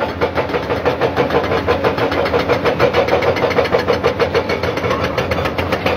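Diesel engines of tracked excavators running while they clear rock debris, with a rapid, even pulse.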